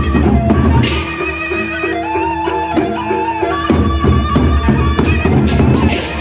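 Lombok gendang beleq ensemble playing: large double-headed barrel drums beat a steady rhythm while crash cymbals and small gongs clash, with a reed melody winding over them. Bright cymbal crashes come about a second in and again near the end.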